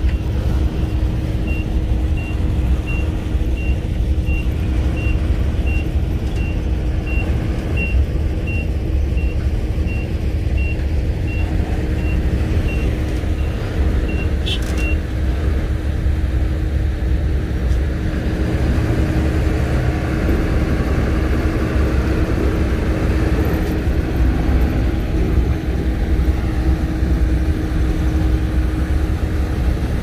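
Shantui crawler bulldozer's diesel engine running steadily under load while pushing dirt: a deep, even rumble with a steady hum. A reversing alarm beeps in a steady string of short high beeps through the first half, stopping about halfway with a short click.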